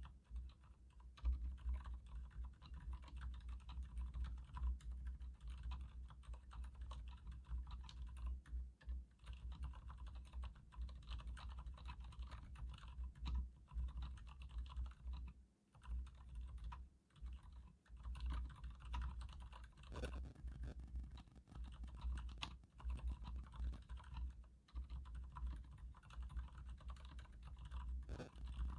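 Continuous typing on a Leopold FC900R full-size mechanical keyboard with Cherry MX Silent Red switches: dense, muted, dampened keystrokes with a few brief pauses.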